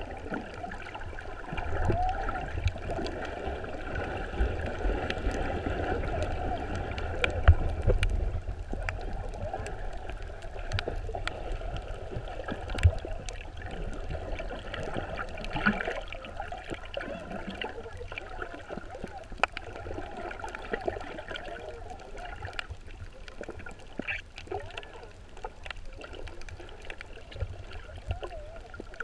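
Muffled underwater water noise heard through a camera held beneath the surface: steady sloshing and gurgling with a low rumble, and scattered sharp clicks and knocks, the loudest about 7 and 13 seconds in.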